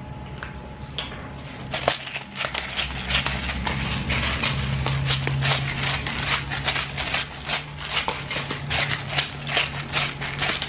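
Coarse salt sprinkled by hand over mud crabs and tiger prawns in an aluminium pan. The grains make a dense run of sharp, irregular ticks on the shells and pan, several a second, from about two seconds in.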